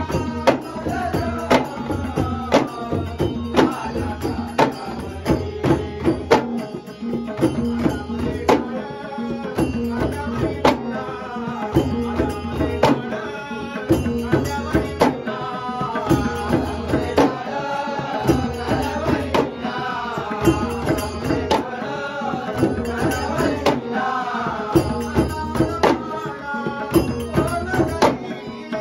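Konkan Shimga folk music: a group of ghumat clay-pot drums and a two-headed hand drum beating a steady driving rhythm, under an elderly man's strong, full-throated singing with harmonium accompaniment.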